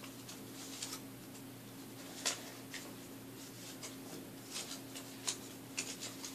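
Faint paper handling while a round hole is made in a folded-paper gun: light rustles and scattered small clicks, with one sharper click about two seconds in and a cluster near the end, over a steady low hum.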